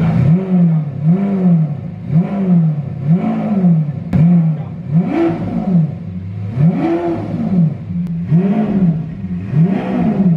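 Lamborghini Aventador's V12 engine, just cold-started, revved in repeated blips, about one a second, each rising and falling in pitch.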